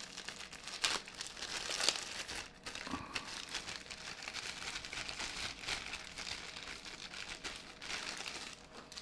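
Thin plastic bag crinkling as it is unwrapped by hand, with a few sharper crackles along the way.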